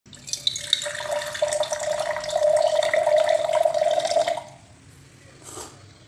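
Channel-intro sound effect: a dense crackling hiss over a steady held tone that cuts off about four and a half seconds in, followed by a short soft whoosh.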